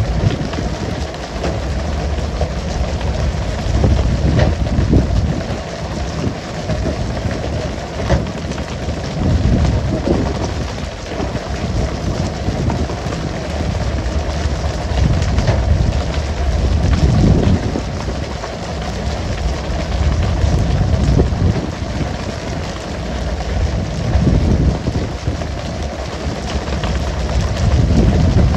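Water sprayers on a pole-and-line tuna boat hissing and pattering onto the sea surface like rain, over a low rumble that rises and falls every few seconds.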